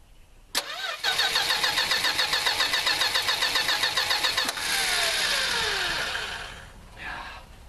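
Plymouth Valiant slant-six engine being cranked by its starter for a cold start after sitting for months: a click, then fast even cranking for about three and a half seconds. The cranking rhythm then stops and a falling whine fades out over about two seconds.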